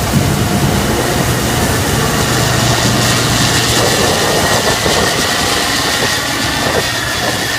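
Combine harvester running steadily while harvesting soybeans: a continuous engine drone with a faint high whine over a broad mechanical hiss.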